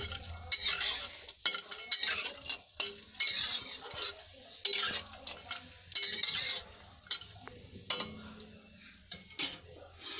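Spatula stirring and scraping cashews and almonds around a pan as they roast in hot ghee, in repeated strokes about one a second, with a light sizzle underneath.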